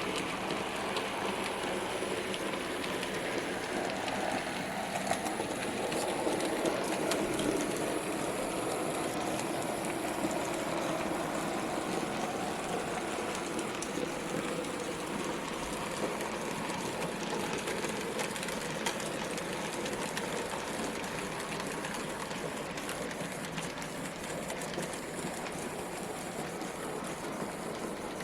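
N gauge model trains running round a layout without sound decoders, so only their own mechanical sound: a steady rolling noise with light ticking of wheels over the track. It swells for several seconds, from about four to twelve seconds in, as a train comes closer.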